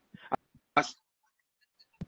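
A few short, clipped spoken syllables from a man's voice in the first second, then dead silence on the call line.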